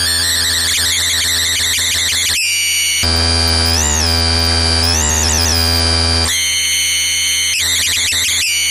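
Homemade electronic noise box sounding loud and continuous: harsh, buzzy synth tones that warble and wobble in pitch. The sound changes abruptly every second or few as its switches and knobs are worked, with a rise-and-fall pitch glide twice in the middle, over a steady low hum.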